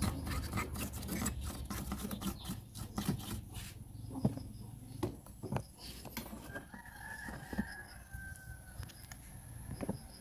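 A rooster crowing in the background, one drawn-out crow that falls slightly in pitch about seven seconds in. Scattered light clicks and knocks of handling come and go around it.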